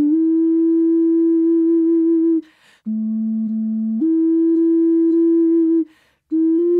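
Purple clay bass ocarina in F by STL played solo: a slow melody of long held, nearly pure notes, with a quick breath taken between phrases twice.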